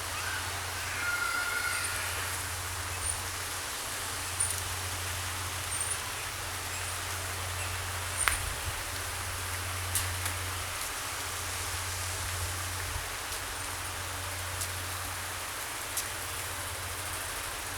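Steady outdoor background noise with a low steady hum underneath, a few faint high chirps about a second in, and occasional sharp clicks.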